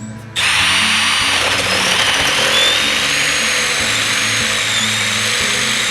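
Power drill running steadily under load, boring out a bolt hole with a larger bit so the winch's mounting bolt will fit. It starts about half a second in, with a steady high whine over the cutting noise.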